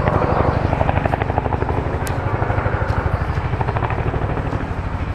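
Boeing Chinook tandem-rotor helicopter, its two rotors beating in a rapid, even pulse of blade slaps.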